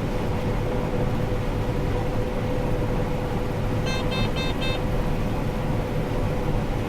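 Combine harvester running steadily while harvesting corn, heard inside the cab, with a thin steady whine in it; the operator still hears this noise a little after sliding an auger forward so it would not drag on a piece of steel. About four seconds in, a quick run of about four short electronic beeps.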